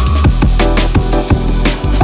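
Electronic drum-and-bass music with fast drum hits and heavy bass.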